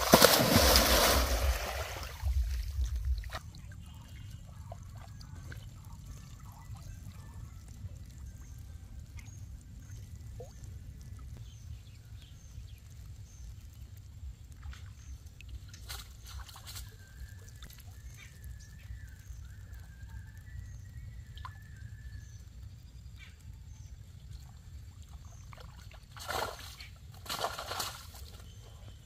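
A weighted cast net slaps down into shallow pond water with a loud splash at the start, then quiet sloshing while it sinks. Near the end water splashes and streams off the net as it is hauled up out of the pond.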